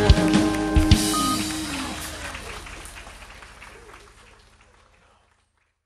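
Live jazz band ending a song: a held final chord cut off by two sharp drum hits in the first second, then audience applause that fades steadily away.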